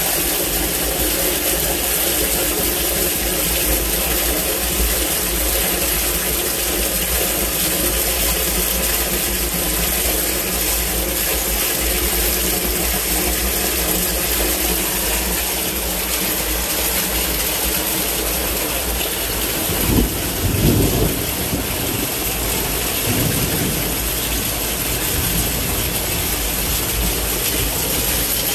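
Heavy rain pouring down in a torrential downpour, a steady rushing hiss with a low rumble underneath; a brief louder rumble comes about two-thirds of the way through.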